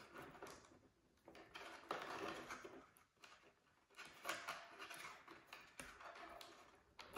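Faint handling noise from fingers pushing a servo lead's plastic plug and socket together inside a foam model airframe: soft rustles and a few small clicks.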